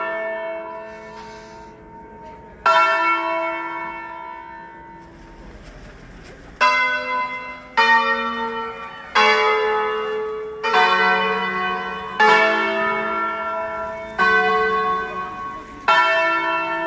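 Church tower bells ringing, struck one at a time at different pitches, each stroke ringing on and slowly dying away. One stroke comes early, then after a long fade the strokes follow about every one and a half seconds.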